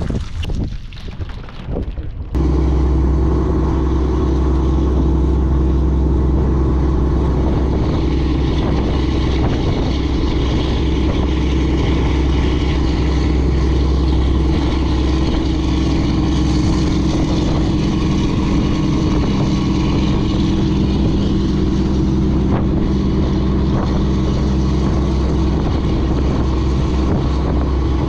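A fishing boat's engine running steadily under way, a loud, even drone that holds one pitch. It sets in abruptly about two seconds in. Before that there is a short stretch of uneven wind noise on the microphone.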